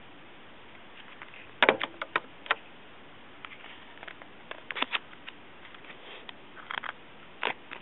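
Scattered small clicks and taps of an iPod Touch being handled and pushed into a plastic dock insert. The sharpest cluster of clicks comes about one and a half seconds in, with lighter taps after.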